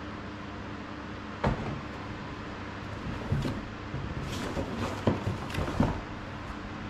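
Hands handling and shifting a cardboard shipping box on the floor: a single knock about a second and a half in, then rustling and several sharp knocks and scrapes of cardboard in the second half, over a steady low hiss.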